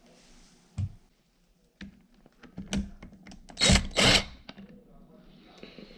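Hand tools and metal engine parts knocking and clinking during a teardown of a KX65 engine. There are a few sharp knocks, then two louder rattling bursts in quick succession about halfway through.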